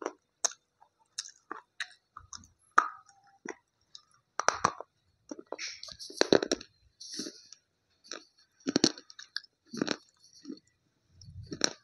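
Crunchy chewing of a brittle slate pencil: irregular sharp crunching bites and gritty chewing, coming in bursts with short pauses between them.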